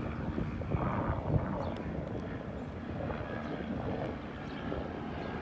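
Police helicopter circling overhead, a steady drone of rotor and engine.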